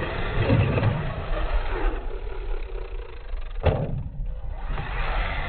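Radio-controlled monster truck driving on dirt. About three and a half seconds in there is a single sharp knock as it hits the plywood ramp.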